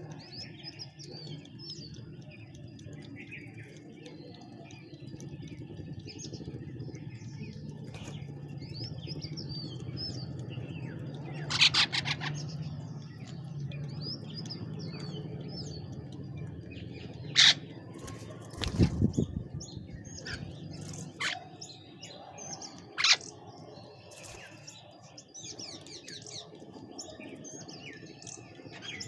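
Birds chirping and calling repeatedly, with a few louder, sharper calls standing out, over a low steady background hum.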